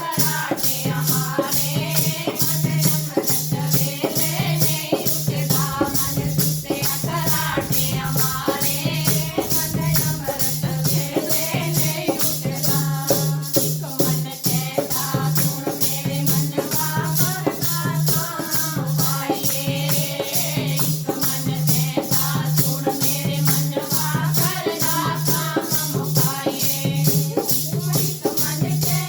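Devotional kirtan music: a melody, likely sung, over a steady bright percussion beat of about three strokes a second, with a low pulsing tone underneath.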